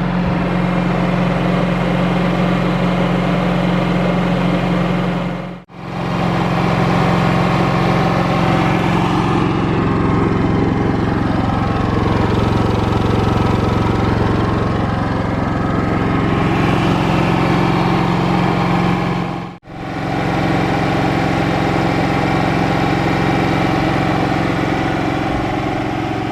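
Cummins Onan QG2500i LP-fuelled inverter generator running steadily at idle, freshly started for the first time. The sound drops out sharply and briefly twice, about six seconds in and again near twenty seconds.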